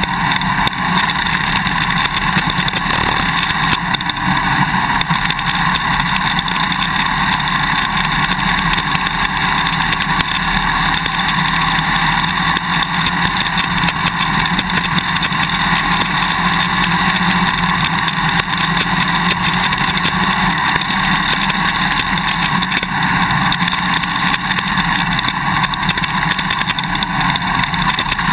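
2001 Suzuki DR-Z400's single-cylinder four-stroke engine running as the bike is ridden, heard loud and close from a swing-arm-mounted GoPro Hero 2, with constant clicking and rattling from the camera's quick release buckle vibrating in its mounting bracket.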